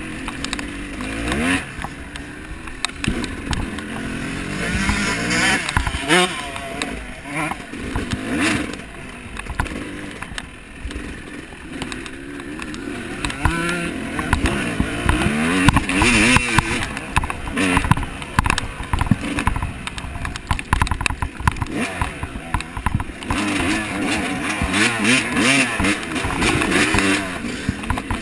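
An off-road vehicle's engine revving up and down over rough ground, its pitch rising and falling constantly, with repeated clattering knocks throughout.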